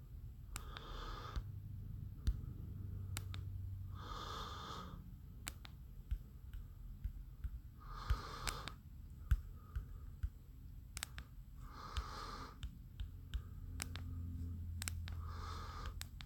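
A person breathing close to the microphone: five slow, wheezy breaths about every four seconds, with faint clicks in between.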